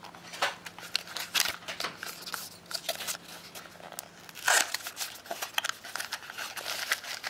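Small cardboard box being opened by hand: its card flaps and inner sleeve scrape and rustle against plastic packaging, with a run of small irregular clicks and crinkles and a louder rasp about four and a half seconds in.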